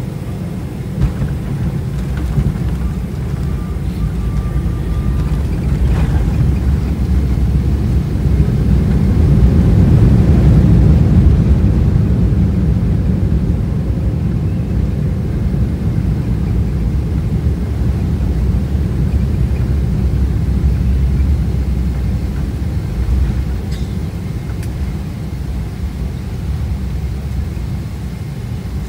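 An airliner landing: a steady low rumble that swells to its loudest about ten seconds in, then eases back.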